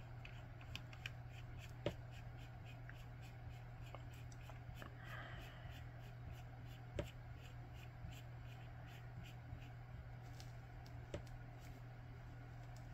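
Faint rubbing and small clicks of fingertips turning the front element of a Zeiss Ikon Kolibri lens to find its thread, with three sharper ticks spread through.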